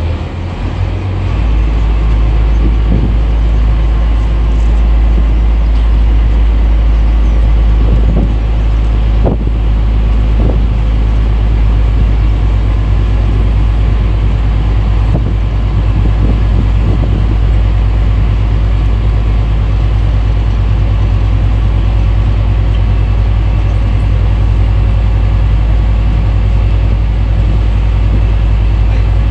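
Strong wind buffeting a phone's microphone aboard a small naval support vessel under way: a loud, steady low rumble that sets in about a second in, over a steady drone that is likely the boat's engine.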